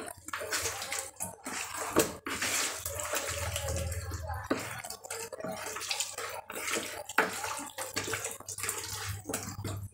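Raw chicken pieces mixed by hand in a liquid marinade in a plastic bowl: irregular wet squishing and sloshing as the meat is worked through the juice.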